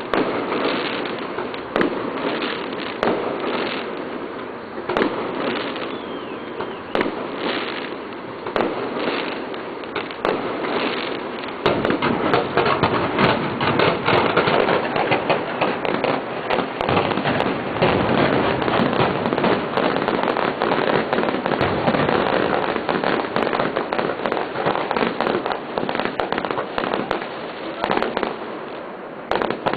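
Fireworks display: shells going off in a string of sharp bangs and crackling. About twelve seconds in it builds into a dense, continuous barrage of rapid pops and crackle, which thins out near the end.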